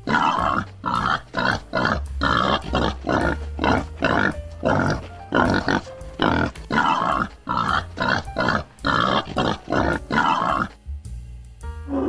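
Boar grunting in a rapid, even series of short grunts, about two to three a second, stopping near the end.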